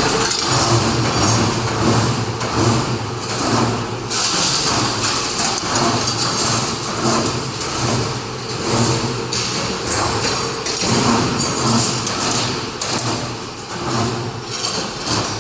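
CNC steel bar bending machine running, bending bar into stirrups: a steady motor hum with irregular knocks and clatter.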